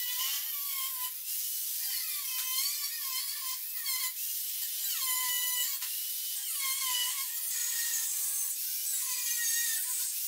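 Angle grinder cutting steel plate, its motor whine dipping in pitch each time the disc bites into the metal and rising again as it eases off, over and over.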